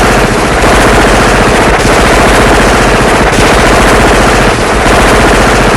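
Movie machine gun sound effect: very rapid, continuous automatic fire, loud and unbroken.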